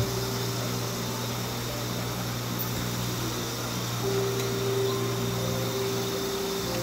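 A steady low hum, with faint sustained tones of background music.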